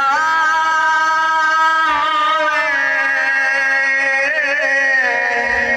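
A man singing a naat unaccompanied, drawing out long held notes rather than words, with short ornamented turns about two seconds in and again past four seconds.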